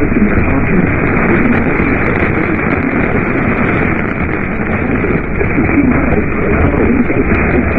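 Loud, steady static from a radio receiver, cut off above the low treble, with a weak broadcast voice faintly buried under the hiss.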